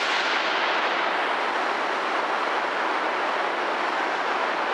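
Passenger train carriage moving slowly past at close range: a steady rushing rumble with no distinct wheel clicks.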